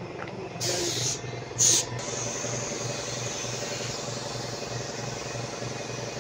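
Gravity-feed paint spray gun spraying a car roof. Two short, loud bursts of air hiss come first, then a steady spray hiss, over a low hum that pulses about twice a second.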